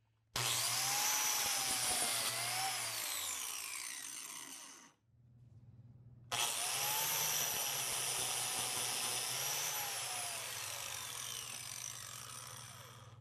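Biscuit joiner run twice, cutting slots for #20 biscuits in wood. Each time the motor starts abruptly with a high whine, dips in pitch as the blade plunges into the wood, then winds down. The second run starts about six seconds in.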